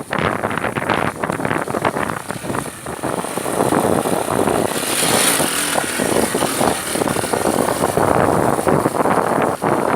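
A motorcycle running, its noise rising and falling unevenly and getting a little louder partway through.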